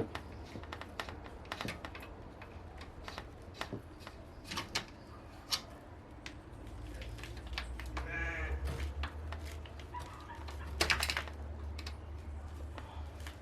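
Scattered clicks and knocks of hand tools and parts being worked at the front of a car, with a short pitched creak about eight seconds in and a quick run of rapid clicks about eleven seconds in.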